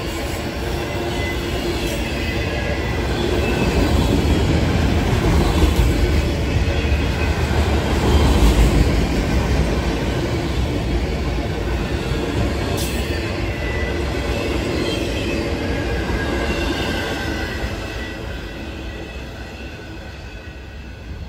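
Freight train of loaded autorack cars rolling past close by: steady wheel-on-rail rumble and clatter with faint high wheel squeal. It is loudest partway through, then fades over the last few seconds as the end of the train passes and rolls away.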